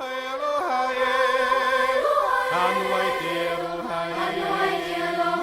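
Background music: long held notes, some wavering in pitch, with a lower held note coming in about two and a half seconds in.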